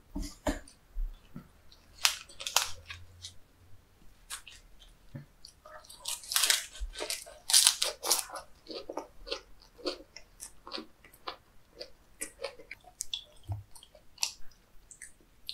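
Close-up chewing of a mouthful of leaf-lettuce wrap with raw seafood sashimi: crisp crunches, loudest about two seconds in and again from about six to eight seconds, then a steady run of softer, wet, clicking chews.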